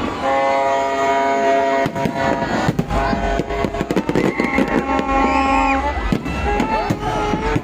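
Fireworks going off in a string of sharp bangs, over loud music with held chords and crowd voices.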